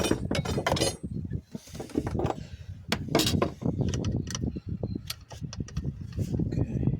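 Metal tools and parts being handled: irregular clinks and knocks, with a short rapid rattle near the start.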